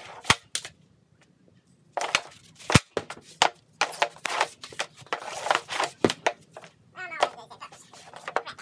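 Hockey stick blade scraping and clacking on a plastic shooting pad as pucks are handled, with three sharp cracks of the stick striking pucks on shots, a few seconds apart.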